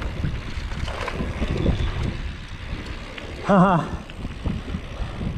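Wind buffeting an action camera's microphone over the rumble and knocks of a mountain bike's knobby tyres rolling down a dirt singletrack. About three and a half seconds in comes a brief wavering vocal sound.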